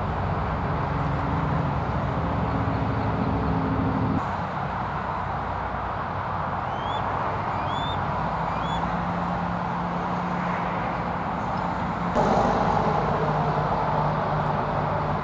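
Steady road traffic, with engine hum from passing vehicles that changes a few seconds in and swells near the end as another vehicle comes by. Three short high chirps sound about halfway through.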